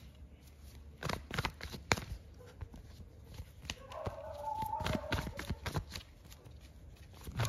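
A deck of tarot cards shuffled by hand, with scattered soft card slaps and taps. A faint pitched background sound comes in about four seconds in and lasts a couple of seconds.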